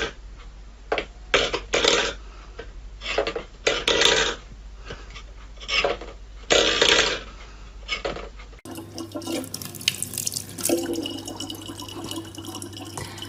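A metal food bowl scraping and clattering on a wooden floor in short bursts as a cat paws at it. About two-thirds of the way through, this gives way to a steady trickle of water running from a tap.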